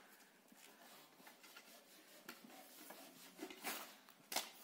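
Faint rubbing and light clatter of a wooden sieve frame and box being handled, with a sharp wooden knock near the end.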